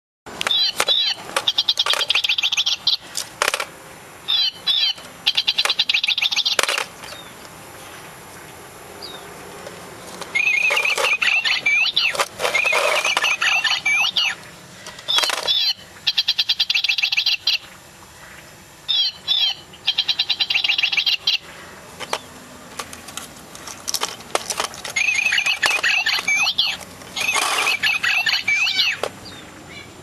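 Battery-powered toy singing bird in a cage, playing repeated bursts of chirping and trilling birdsong with short pauses between them.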